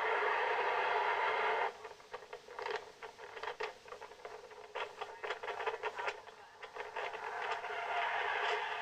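Narrow-band radio static: a steady hiss that cuts off abruptly under two seconds in, giving way to scattered crackles and clicks, then swells back in near the end.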